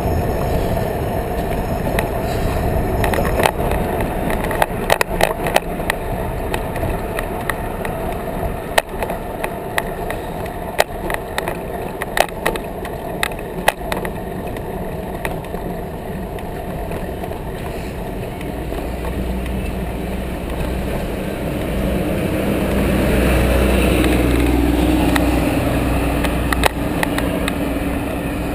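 Bicycle ride with the camera on the bike: steady tyre rumble and wind on the microphone. In the first half come frequent sharp clicks and knocks as the bike rolls over the bridge deck's joints and bumps. Later, road traffic passes close by, and one vehicle swells loudly with a falling tone before fading.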